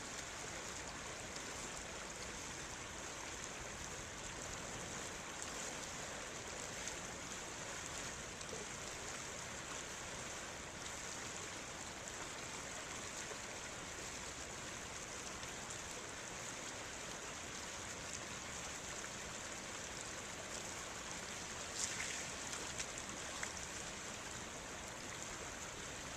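River water rushing steadily, an even hiss of flowing water. A few brief clicks or splashes come near the end.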